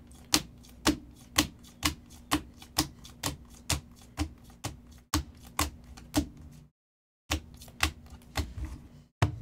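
A stack of glossy Donruss Optic chromium football cards being flipped through one by one, each card giving a sharp click, about two clicks a second.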